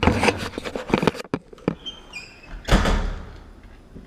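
Cabinet door being worked open and shut against a double roller catch: a clatter of knocks, a brief squeak about two seconds in, then a solid thump as the door closes and the rollers grab it.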